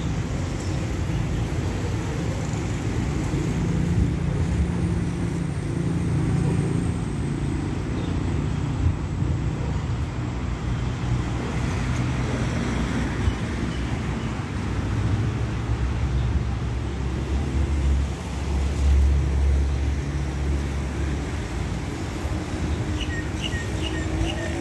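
Steady rumble of distant engines and traffic, with a deeper engine drone that swells about three quarters of the way through.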